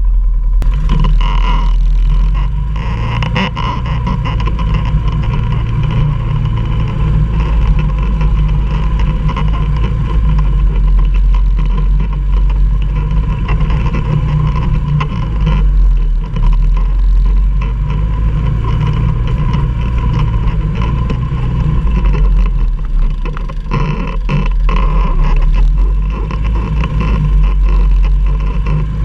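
Quad (ATV) engine running steadily, with a few knocks and rattles over it.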